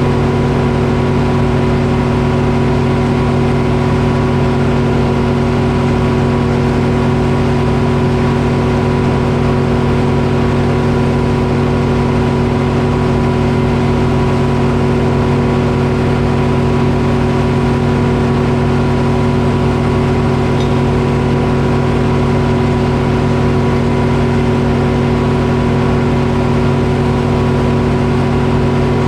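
Detroit Diesel engine powering a Frick sawmill, running at a steady speed.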